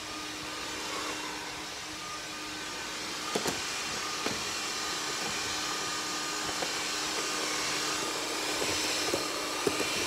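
Vacuum cleaner running steadily with a constant hum under an even hiss, gradually getting louder. A few light knocks stand out, two about three and a half seconds in and one near the end.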